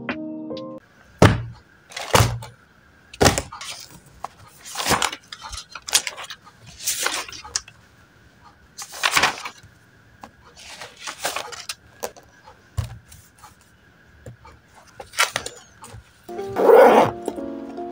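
Paper rustling as spiral-notebook pages are handled and turned: a string of separate swishes and crinkles every second or two over a faint steady high hum. A short loud cry comes near the end, and background music plays briefly at the start and returns at the end.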